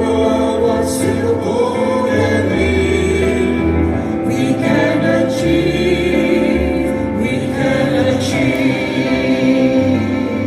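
A choir singing over instrumental accompaniment, with long held notes above a low bass line.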